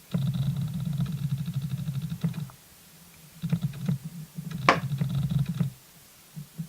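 Autofocus motor of a Sigma 18-200 camera lens chattering in several bursts as it hunts for focus, picked up by the camera's microphone, with one sharp click about two-thirds of the way through.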